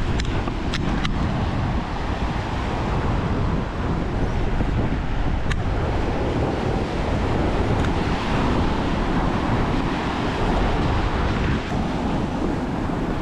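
Ocean surf washing and breaking over a rock platform, with wind buffeting the microphone. A few sharp clicks come in the first second and one more about five and a half seconds in.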